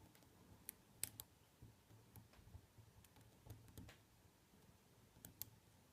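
Faint, irregular clicks and ticks of a lock pick working the pins of an ABUS C83 padlock during single-pin picking. The sharpest clicks come in small groups about a second in, near the middle and near the end.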